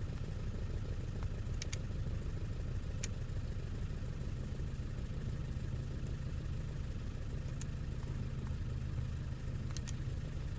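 Renault Clio 2 petrol engine idling steadily, with a few faint clicks over it.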